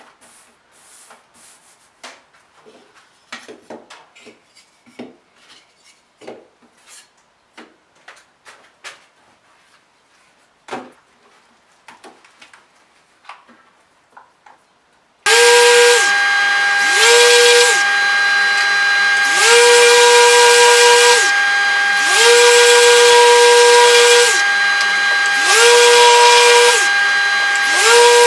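Light taps and rustles of a sanding mesh pad and small wooden pieces being set down on a workbench. About halfway through, an electric random-orbit sander starts up and runs loudly on the small wooden panels, a steady high whine whose level and lower pitch dip and come back every two to three seconds.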